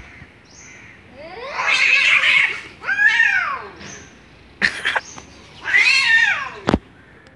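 Two cats yowling at each other in a standoff. Several long calls rise and fall in pitch, with two short sharp bursts between them and a sharp knock near the end.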